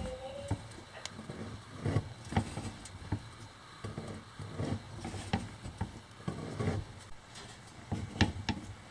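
Hand-lever bench shear cutting through sheet steel: a series of short, sharp crunching snips, one with each stroke of the handle, coming irregularly about once or twice a second.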